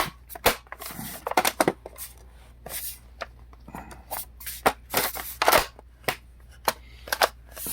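Irregular clicks, taps and knocks of a laptop's bottom cover plate being slid and pressed into place until it snaps on.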